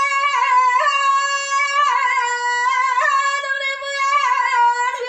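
A high female voice singing alone, holding long ornamented notes with no instruments, the melody dipping slightly near the end.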